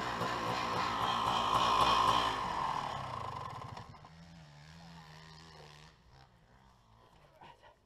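Dirt bike engine running with wavering revs, loudest about two seconds in and fading away, then a low steady idle that stops about six seconds in, leaving only faint clicks.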